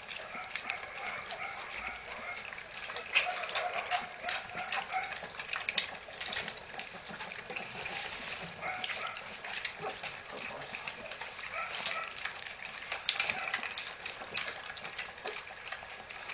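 A litter of four-week-old puppies lapping and slurping food from a shared bowl: a dense, continuous run of wet smacking clicks.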